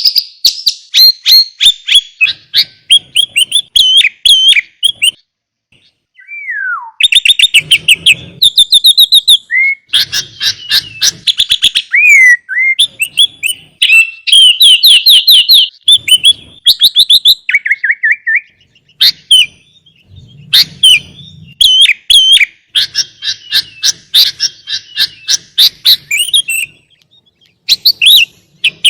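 Sooty-headed bulbul singing a long, busy song: rapid chattering runs and clear whistled phrases, with fills mimicked from other birds, as used in a masteran. The song breaks off briefly about six seconds in, where a single falling whistle comes, and again near the end.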